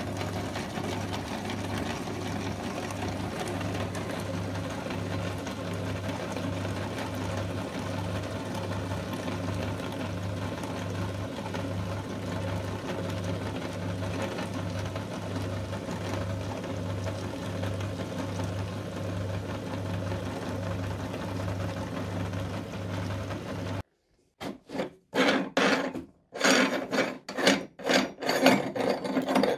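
Motor-driven meat grinder running with a steady hum and a regular pulsing beat as it grinds a water balloon full of water beads. It shuts off near the end, followed by a series of sharp metal clacks and knocks as its cutting plate and retaining ring are handled.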